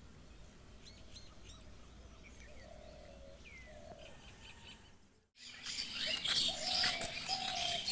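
Birds chirping and calling outdoors, with a few lower short whistled notes among the higher chirps. The birdsong is faint at first, then drops out briefly about five seconds in and comes back louder and busier.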